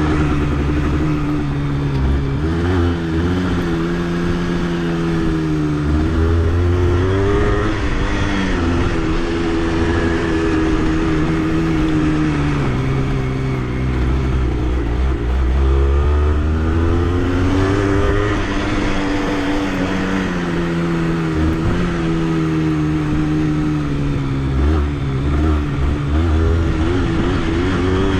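Honda CRM80's two-stroke single-cylinder engine running under way, its revs rising and falling again and again as the bike accelerates and eases off.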